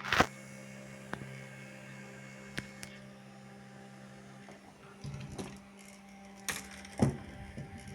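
Small DP 2 W portable fan's electric motor running with a steady hum, with a few sharp clicks and knocks, the loudest two near the end. The lower part of the hum cuts out about four and a half seconds in while a higher tone keeps going.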